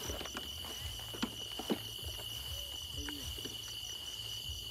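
Night chorus of crickets and other insects: one steady high trill with a higher pulsing trill above it, about six pulses a second. Rustling and crackling of dry cornstalks and grass as someone walks through them, with two sharper clicks about a second and a half in.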